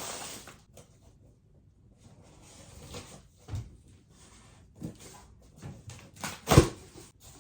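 Cardboard delivery box being handled and opened: rustling of cardboard and packing with a few dull thumps, the loudest about six and a half seconds in.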